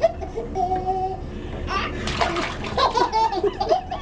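Two babies babbling and laughing at each other in bathwater: a drawn-out 'aah' in the first second, then a stretch of excited, high-pitched babble and squeals, with light sloshing of the water.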